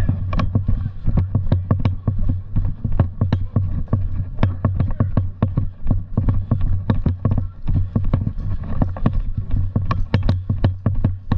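Footsteps of someone running on hard ground, about three steps a second, over a steady low rumble.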